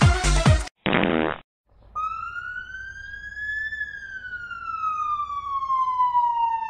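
Electronic dance music with a steady beat stops abruptly, followed by a short raspy noise and a moment of silence. Then a single siren-like tone rises slowly for about two seconds and glides slowly back down.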